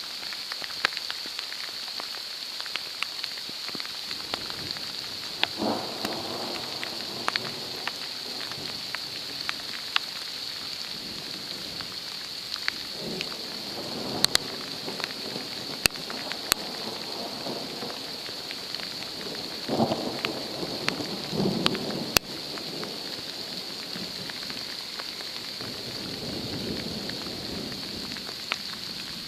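Thunderstorm: steady rain hiss with sharp close raindrop ticks, and thunder rumbling several times, loudest about two-thirds of the way through.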